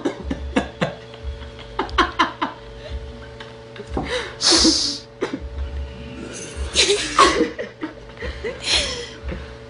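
People laughing and giggling in short, irregular bursts.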